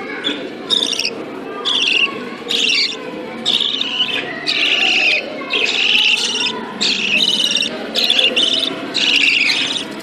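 Budgerigar nestlings calling: about a dozen short, harsh calls in a row, roughly one a second, over a steady low background noise.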